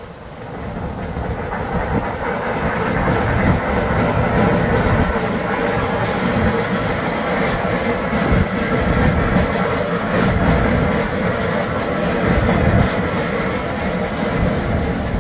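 Steam boiler blowdown: hot water and steam rushing out of the blowdown pipe in a loud, steady blast that builds over the first couple of seconds. It is the boiler's bottom water being blown out to purge sludge as the boiler is shut down.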